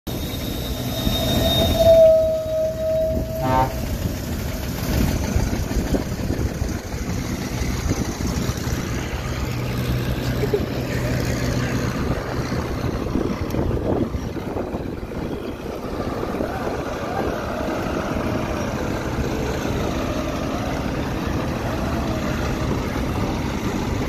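Diesel engine of a Komatsu D31P crawler bulldozer running steadily under load as it tows a stuck crane truck. A brief steady horn-like tone sounds about two seconds in.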